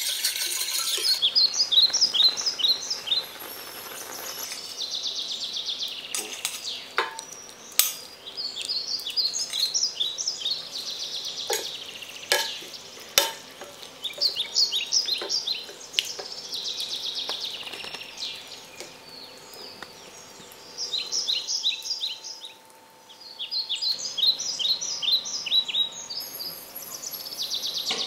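Wire whisk and utensils stirring and clinking against a stainless steel pan, with sharp scattered clicks. Bird chirps in short quick clusters repeat every few seconds behind it.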